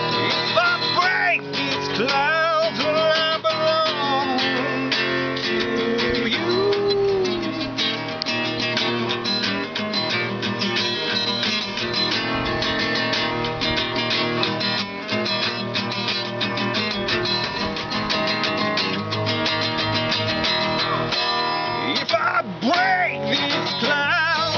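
Steel-string acoustic guitar strummed steadily in open D tuning.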